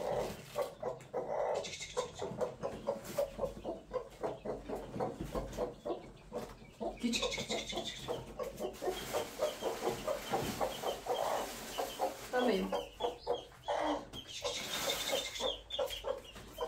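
Domestic chickens clucking, a long run of short repeated calls.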